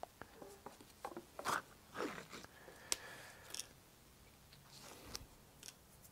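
Faint scattered clicks, crinkles and scrapes of fingers picking at and peeling the lid of a plastic crème fraîche cup, a lid that won't open properly.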